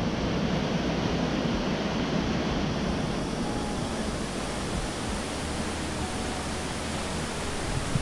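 Steady rush of water from a small waterfall pouring into a pool in a narrow rock gorge.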